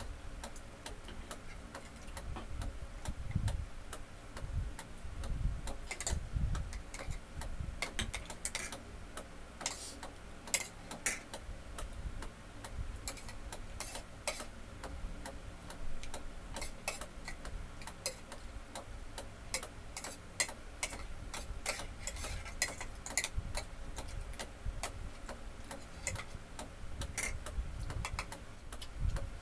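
Spoon and fork clicking and tapping against plates at an uneven pace as people eat, with some soft low bumps and a faint steady hum underneath.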